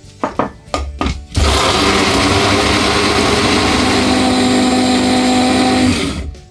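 A Sonifer electric spice grinder grinding dried lemongrass, run by pressing down on its lid. A few light knocks as the lid goes on, then the motor runs steadily for about four and a half seconds and stops near the end.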